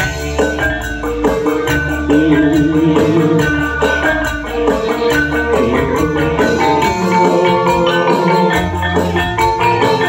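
Live band music: electronic keyboard melody over a steady bass beat and percussion.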